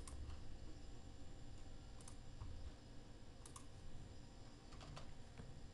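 A few short, sharp computer mouse clicks, spaced a second or more apart, with a faint low hum underneath.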